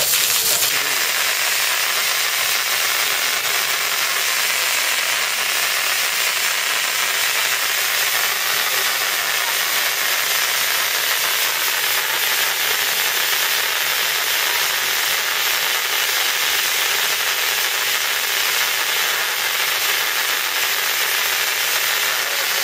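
Steady hiss of a hose's water jet spraying over an Asian elephant's wet body.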